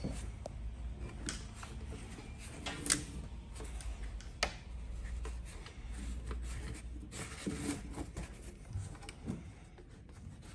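Hands working a canvas soft-top's tie-down rope onto a metal rope hook: rubbing of rope and canvas with a few light clicks, over a low steady hum.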